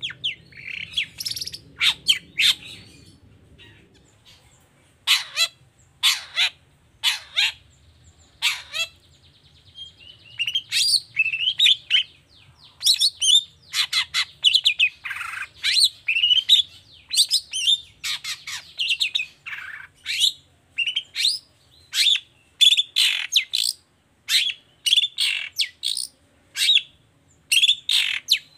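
Long-tailed shrike singing a fast, uneven run of short, sharp chirps and harsh notes, with a brief buzzy rattle about eight seconds in.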